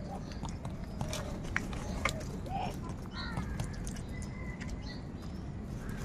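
A flock of house crows feeding, giving scattered short caws and calls among many sharp clicks of beaks pecking at the food.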